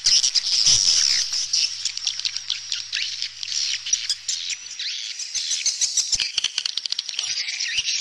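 Several swallows twittering: many rapid, high chirps overlapping without a break.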